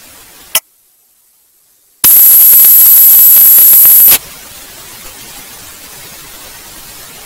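Static on the audio feed: steady hiss cut by a sharp click about half a second in and a brief near-silent dropout, then a very loud burst of static with a piercing high whine for about two seconds, dropping back to steady hiss.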